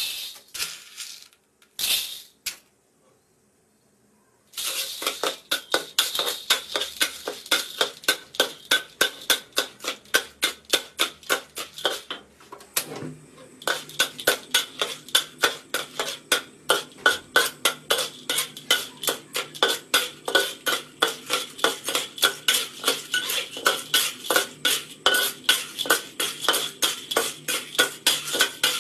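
Metal spatula stirring dry, still unpopped popcorn kernels around a wok, scraping the pan and rattling the kernels in regular strokes about three a second, with a short pause about twelve seconds in. Near the start, kernels clatter into the wok twice before a brief quiet spell.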